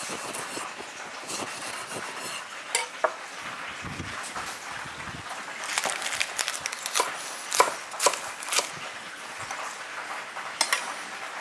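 Kitchen knife slicing a tomato and knocking on a wooden cutting board, with sharp knocks scattered through, heaviest in the middle, over a steady hiss of fish frying in hot fat.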